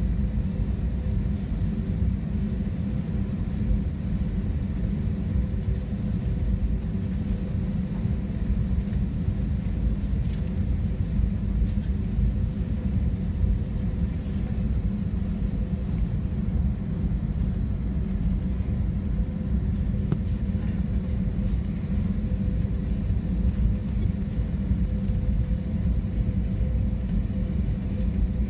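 Airbus A321-200 cabin noise while taxiing: a steady low rumble from the engines and the rolling aircraft, with a faint steady hum above it.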